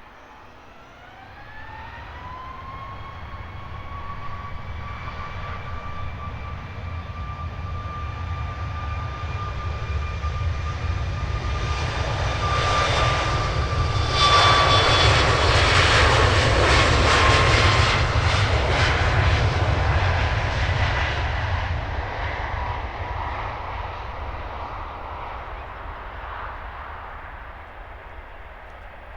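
Jet airliner's engines passing. A whine rises in pitch over the first couple of seconds and then holds steady, while a roar with a low rumble builds to its loudest about halfway through and then fades away.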